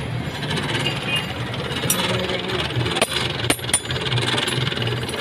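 Iron tool being sharpened on a grinding wheel: a steady grinding hiss over a pulsing mechanical hum, with a few sharp clicks in the second half.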